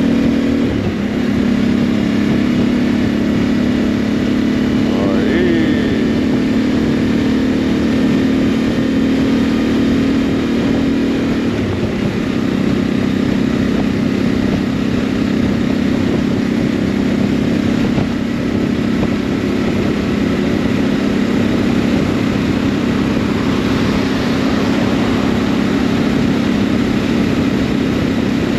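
Touring motorcycle engine running steadily at motorway cruising speed, heard from the rider's seat over wind and road noise. The engine note shifts slightly about twelve seconds in, and a brief gliding tone passes about five seconds in.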